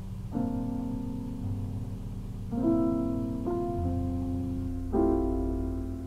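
Slow piano music: four sustained chords, each ringing on, over a low held bass.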